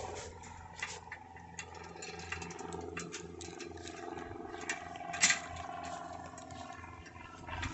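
Small metal clicks and knocks of bicycle rear-wheel hardware being handled and fitted, with one sharper knock about five seconds in, over a steady low hum.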